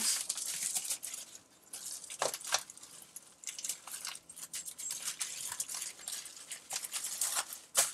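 Bubble wrap rustling and crinkling in irregular crackles as it is handled and wrapped around a wooden spice rack.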